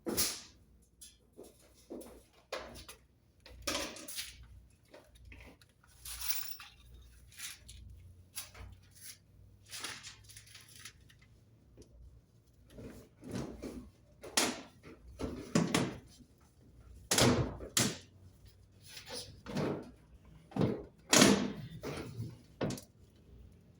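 Irregular knocks, clunks and scrapes from fitting a chimney pipe on a roof by hand, a little louder and closer together in the second half.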